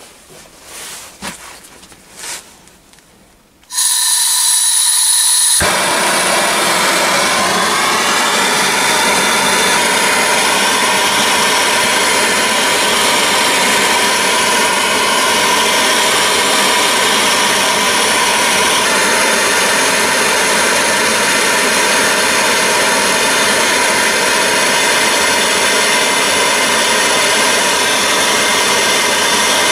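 Bullfinch Autotorch propane brazing torch lit about four seconds in: a hiss with a high whistle, then after about two seconds a fuller, loud, steady rush of burning gas. The torch is heating a steel joint for silver-solder brazing.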